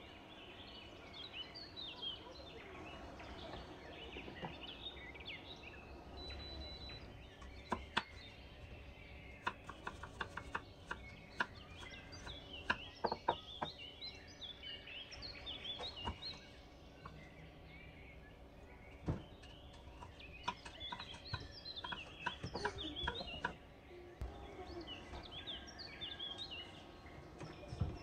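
Many small birds chirping busily, with scattered sharp clicks and knocks in between.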